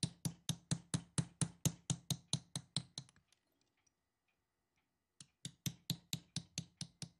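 Small hammer tapping a chisel against a thin copper plate in quick, even strokes, about four a second, raising the edge of a carved cavity for metal inlay. The tapping stops for about two seconds midway, then resumes.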